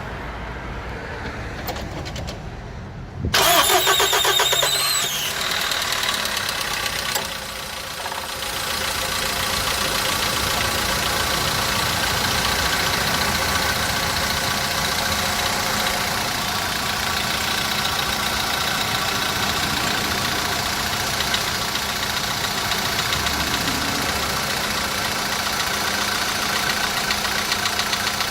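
Volkswagen Polo petrol engine cold-started: it catches about three seconds in with a brief rev flare, then settles into a steady fast idle with a rapid knock throughout. The knock on cold start is the fault the owner is asking about.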